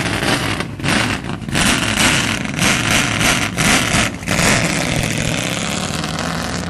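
Race car engine accelerating hard as the car pulls away, revving in bursts broken by about five brief dips in the first four seconds, then running on more evenly.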